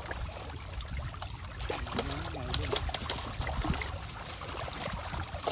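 Outdoor water splashing and trickling over a low rumble, with a few sharp clicks; a voice sounds faintly about two seconds in.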